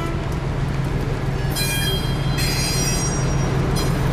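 Train moving through a station: a steady rumble with a low hum. About a second and a half in, high metallic wheel squeals come in and go on for about two seconds.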